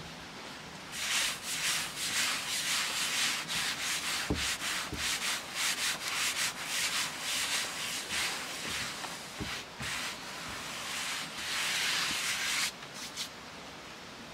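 A floured palm rubbing and smoothing a thin sheet of fresh pasta dough in quick repeated strokes, a dry scraping hiss. It starts about a second in and stops abruptly near the end.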